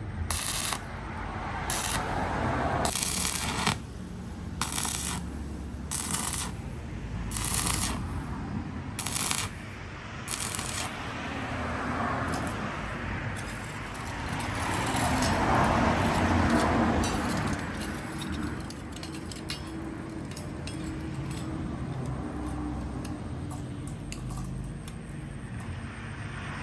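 Steel rebar being worked by hand: metal clanks or strikes about once every second or so for the first ten seconds, then a long rasping scrape of metal on metal that swells partway through.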